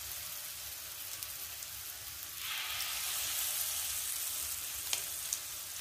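Flour-battered shrimp deep-frying in hot oil in a wok, a steady sizzle that grows louder about two and a half seconds in as another shrimp goes into the oil. A couple of light clicks near the end.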